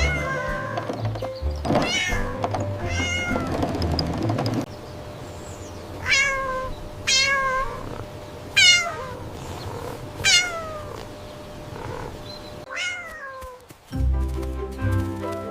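A cat meowing again and again, about eight short calls that each fall in pitch, over background music.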